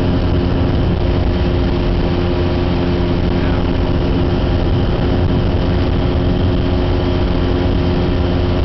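Rotax 912 flat-four engine of a Maxair Drifter ultralight running steadily at constant power, a continuous drone.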